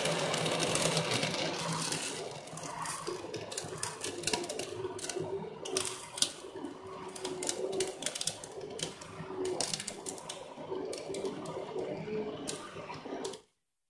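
Hand-held stick blender running in a glass jug, puréeing sugar-macerated cherries in their syrup, with frequent clicks and crackles as pieces of fruit hit the blade. It is loudest for the first couple of seconds, runs on steadily, and cuts off near the end.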